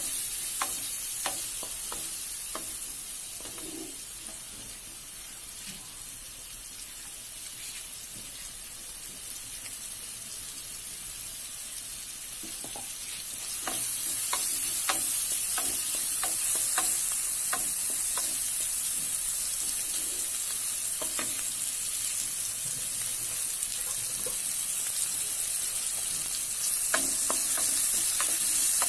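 Hot oil sizzling in a pan while a spatula stirs, with scattered clicks and scrapes against the pan. The sizzle gets louder about halfway through.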